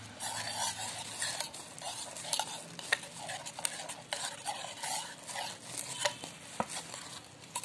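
A spoon stirring coarse dried rose and orange-peel powder into milk in an enamel bowl: gritty scraping against the bowl, broken by frequent small irregular clicks of the spoon.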